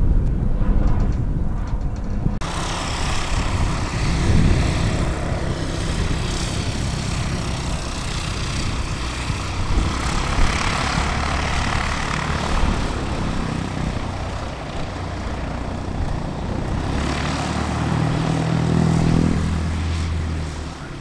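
Light propeller aircraft's piston engine running with a steady drone. Its engine note becomes clearer and a little louder near the end.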